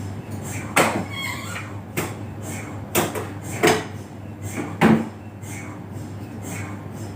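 MRI scanner sounding: a steady low hum under a soft pulse repeating about once a second, with several louder, sharp knocks about a second apart in the middle.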